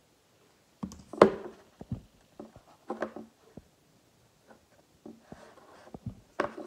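Light knocks and taps from gingerbread house pieces and a tube of icing being handled and pressed together on a tabletop, an irregular string of short sounds with the loudest about a second in.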